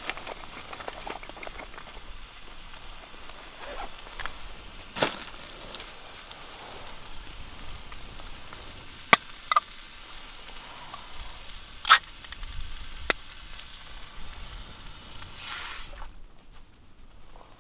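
Steady hiss of a pot cooking on a camping stove, with a few sharp clicks and knocks of pot and utensils; the hiss cuts off suddenly near the end.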